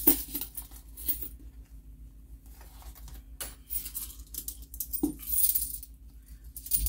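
Coins clinking as they are worked out of a fabric zipper pouch and set down on a paper planner: a few scattered clinks, then a busier clatter of coins about five seconds in.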